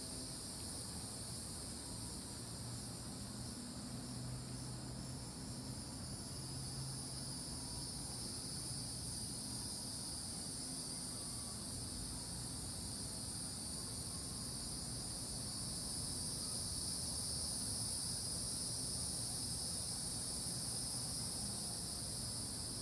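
Chorus of insects: a steady, high-pitched drone in several overlapping pitches.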